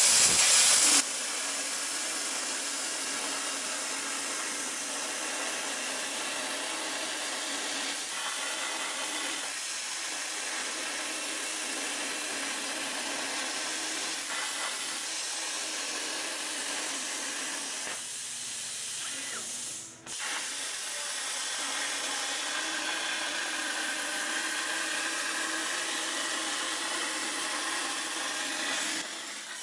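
Plasma torch on a CNC plasma table cutting steel plate: a steady air-plasma hiss. It opens with a louder burst in the first second as the cut starts, and the level dips briefly about twenty seconds in.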